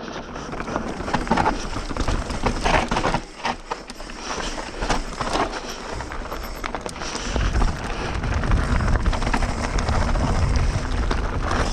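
Bird Zero AM hardtail mountain bike rattling down a rough, dry trail: tyres crunching over dirt and rocks with a string of clattering knocks from the bike. About seven seconds in, a steady low rumble of wind on the microphone builds up as the speed rises.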